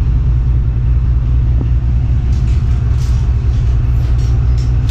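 Steady, loud low rumble with a few faint rustles and clicks about halfway through.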